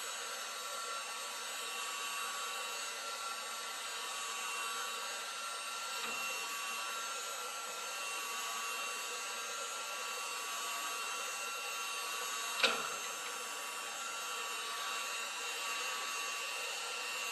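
A steady fan-like whirring hiss runs without change. A faint thud comes about a third of the way through, and one sharp click about two-thirds of the way through.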